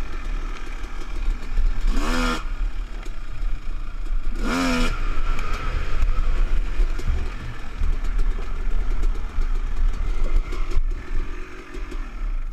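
Two-stroke dirt bike engine running under a rider on a trail, with two quick sharp revs about two seconds in and again around four and a half seconds.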